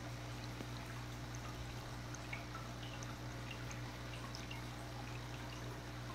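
Aquarium water bubbling and trickling, with scattered small plinks of air bubbles and drips, over a steady low hum.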